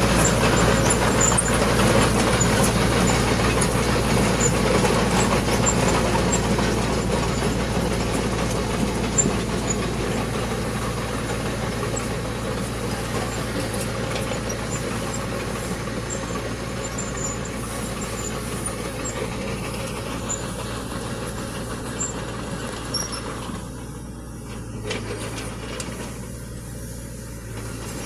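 Diesel engine of heavy earth-moving machinery running with a steady low hum, growing gradually fainter over the stretch.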